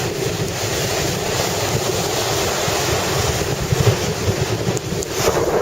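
Strong typhoon wind buffeting the microphone over the steady rush of breaking surf.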